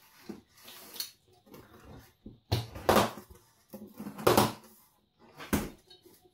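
Rain-damp cardboard shipping box being torn open by hand: a series of short ripping and scraping bursts as packing tape and cardboard flaps are pulled apart, the loudest three in the second half.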